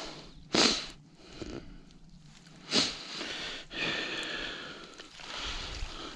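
Gill net being handled as a fish is worked free of the mesh by hand, a soft rustling, with two short sharp hissing noises about half a second and nearly three seconds in.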